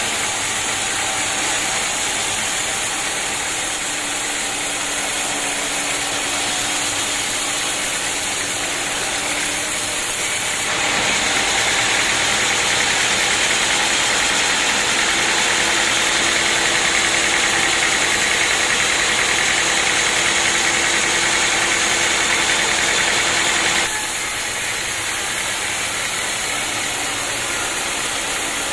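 Sawmill machinery running steadily. About eleven seconds in it grows louder and brighter for roughly thirteen seconds, then drops back to the earlier level.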